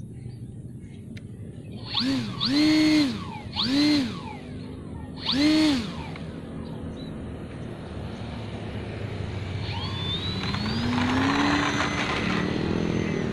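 RC Edge aerobatic model aeroplane's motor and propeller: four short throttle blips, each rising and falling in pitch, between about two and six seconds in, a pre-flight run-up. From about ten seconds in the motor throttles up steadily, rising in pitch, as the plane starts its takeoff run.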